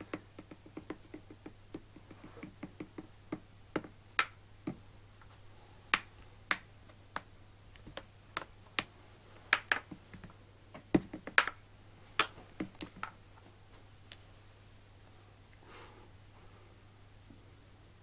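Irregular sharp finger clicks, some single and some in quick pairs, made by a person's hand above the basket to catch the kittens' attention. A faint steady hum runs underneath.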